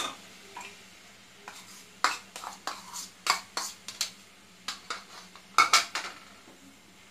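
Spatula stirring and scraping chopped tomatoes into onion masala in a non-stick kadai: a string of quick knocks and scrapes from about two seconds in, the loudest just before the end.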